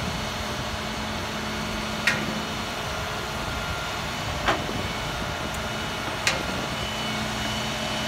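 Heavy equipment engine running steadily, with three short sharp knocks about two, four and a half, and six seconds in.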